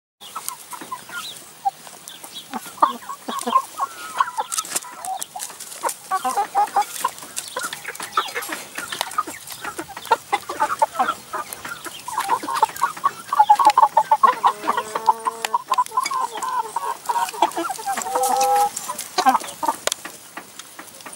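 Hens clucking while they feed, with a busier run of quick clucks in the middle. Many short, sharp taps run through it, from beaks pecking at chopped red peppers in a plastic tray.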